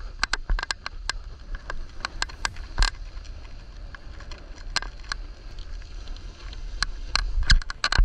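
Irregular click-clack noises, a few sharp clicks a second, thicker and louder near the end, over a low steady rumble, recorded during a snowboard run.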